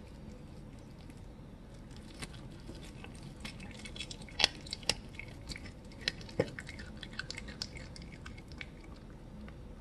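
A domestic cat chewing a raw chicken leg, crunching into the bone: irregular wet crunches and clicks, starting about two seconds in, loudest around the middle, and thinning out near the end.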